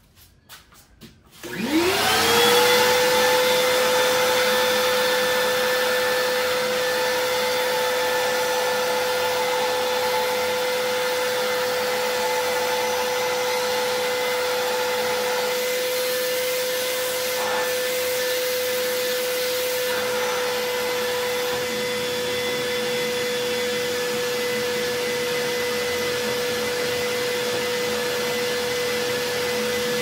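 Vacmaster 2.5-gallon, 2 HP wet/dry shop vacuum switched on about a second and a half in. Its motor spins up with a quickly rising whine, then runs steadily with a loud rush of air as it sucks up ash.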